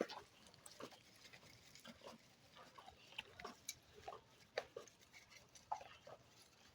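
Goats eating a dry ration of bean chaff and cereal from a feeding trough: faint, scattered short clicks and crunches.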